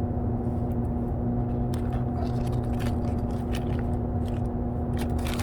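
A steady low hum holding a few fixed tones. From about two seconds in come scattered small clicks and light scrapes of hand work fitting plastic mud flaps to a car's wheel arch.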